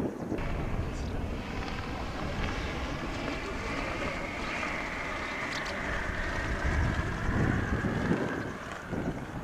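Wind buffeting the camcorder's microphone as a continuous low rumble, with a faint, steady high drone over it from about half a second in until near the end.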